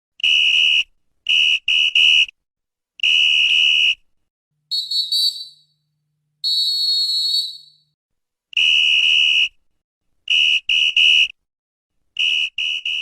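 Referee's whistle blown in a series of sharp, loud blasts: some single long blasts and some quick groups of three short ones. Two higher-pitched, wavering blasts come in the middle.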